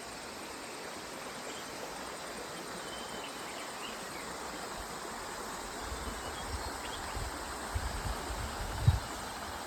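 River water rushing steadily, with a thin, steady high insect drone over it. In the second half, irregular low bumps of wind on the microphone come in, the strongest near the end.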